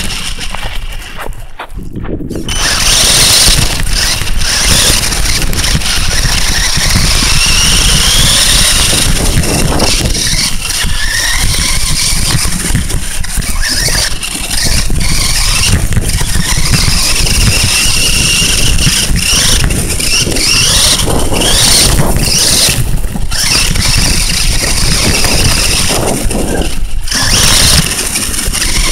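Traxxas Summit VXL RC truck driving over gravel and dry grass, heard from on board: the electric motor and gears whine, gliding up and down in pitch with the throttle, over a loud rough rumble of the tyres and chassis on the rough ground. It grows loud about two seconds in.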